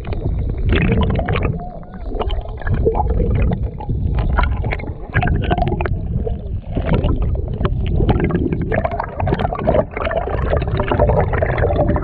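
Muffled stream water heard through a submerged camera: a low, rumbling wash of moving water with many small clicks and crackles.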